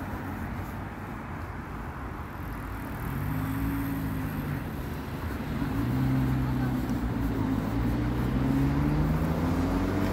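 Road traffic: a car engine's low hum comes in about three seconds in and grows louder, its pitch wavering, over a steady rumble of road noise.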